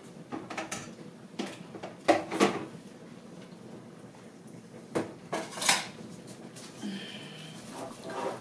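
Scattered knocks and clinks of kitchen utensils and dishes, about seven separate strikes at uneven gaps, with one short ringing clink near the end.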